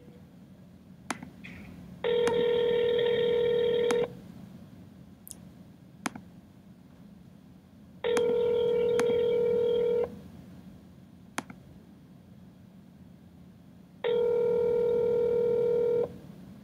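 North American telephone ringback tone, three two-second rings six seconds apart, with a few faint clicks between them: the called line is ringing with no answer yet.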